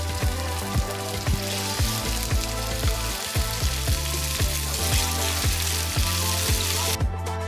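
Pork cubes sizzling as they fry in hot oil in a cast-iron skillet, under background music with a steady beat. The sizzle cuts off suddenly near the end, leaving only the music.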